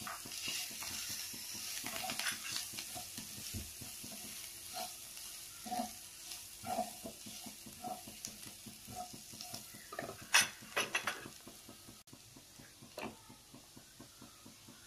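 Chopped vegetables sizzling in a frying pan as they are stirred and scraped with a spatula, with many small clicks and scrapes against the pan. A quick run of louder clicks comes about ten seconds in, and the sizzle is lighter near the end.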